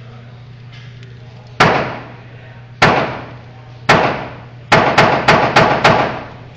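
Eight rifle shots from a semi-automatic rifle: three about a second apart, then five in quick succession, about three a second, each with a short echoing decay.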